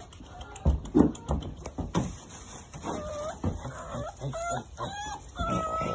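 American bully puppy whining in a series of short, pitched cries, some rising, starting about three seconds in, after a few knocks in the first two seconds.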